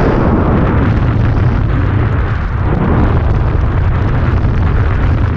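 Strong wind buffeting the microphone: a loud, steady rumble with no clear pitch.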